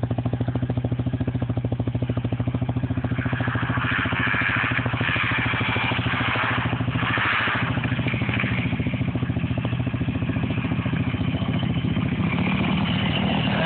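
An engine idling steadily close by. A Yamaha YZ250F dirt bike engine rises in the distance about three to eight seconds in and again near the end as the bike approaches.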